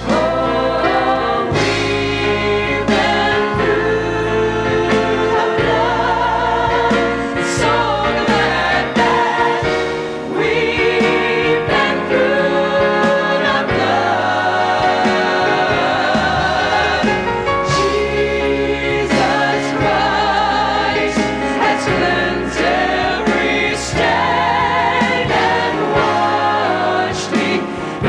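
Gospel music: a vocal group singing in harmony with vibrato over instrumental accompaniment.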